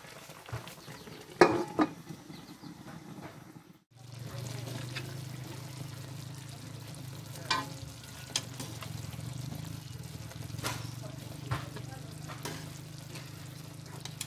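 Pork hocks simmering in a wok of reducing soy-vinegar sauce, a sizzling bubbling, with sharp knocks of chopsticks against the wok as the meat is turned. A steady low hum comes in about four seconds in.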